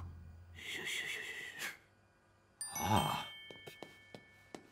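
Cartoon sound effects: a bright chime-like ding about two and a half seconds in that rings on as several high tones, with a short grunt, then light quick footstep clicks.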